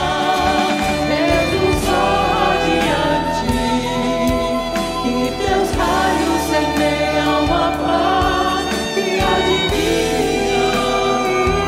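Two women singing a Portuguese devotional hymn, backed by a choir and accompaniment, with the lines "És o Sol radiante, e Teus Raios semeiam a Paz e a Divina Esperança".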